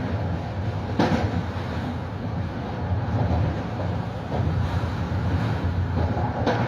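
Metro-North M3A electric train running, heard from on board: a steady low rumble, with a sharp click from the wheels on the track about a second in and another near the end.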